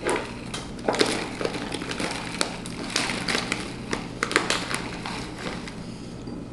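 Paper flour bag crinkling and rustling as it is tipped and shaken, pouring flour into a glass measuring cup, with irregular crackles and light taps throughout.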